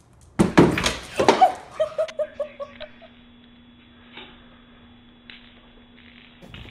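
A person bursting out laughing, loud at first, then a quick run of short "ha"s that trails off. Afterwards only a faint steady hum remains.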